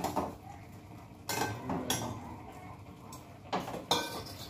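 Steel cutlery and kitchen vessels clinking and scraping as cooked Maggi noodles are dished out of a steel pot into a lunch box: several separate sharp clinks.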